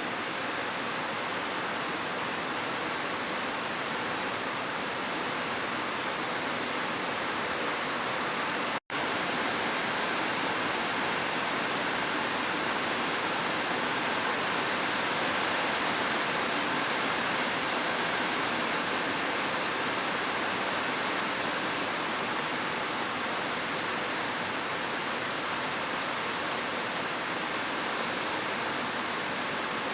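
Heavy rain falling as a steady, even hiss. It cuts out for an instant about nine seconds in, then carries on unchanged.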